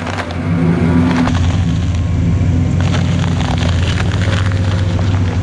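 Lifted Chevrolet Silverado pickup's engine running close up, a loud steady low drone, as the truck creeps forward at low speed over gravel.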